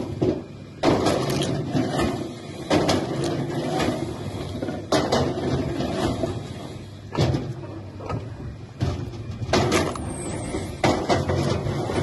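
Sawmill work: loud wooden knocks and clatters every second or two, over a steady low machine noise.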